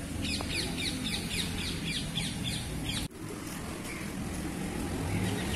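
A bird calling a quick run of short, falling chirps, about five a second, for over two seconds. The sound drops out sharply about three seconds in, and fainter chirps follow over a steady low background rumble.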